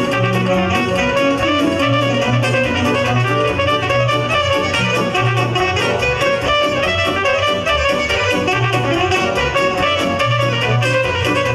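Live Romanian party band playing an instrumental break: saxophone leading over a Roland digital accordion and electronic keyboard, with a steady, fast beat and pulsing bass.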